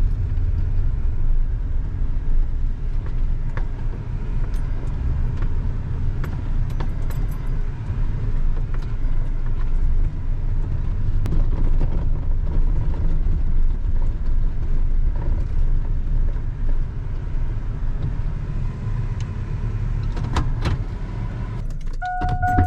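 A vehicle's engine running with a steady low rumble and scattered light rattles. Near the end a steady electronic beep tone starts.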